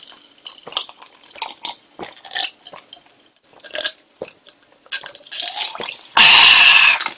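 A person gulping an iced drink from a glass, close to the microphone, with soft swallows, slurps and small wet clicks. About six seconds in comes a loud breathy rushing burst lasting under a second.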